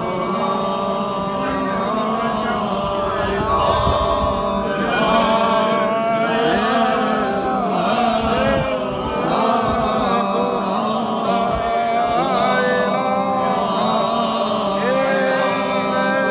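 A crowd of men's voices chanting together in one steady, unbroken religious chant, many voices overlapping.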